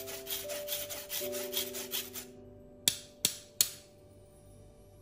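A spoon scraping ground biscuit powder through a stainless steel mesh sieve in quick strokes, about five a second, stopping a little past two seconds in. Then three sharp taps about a third of a second apart. Soft background music with held notes.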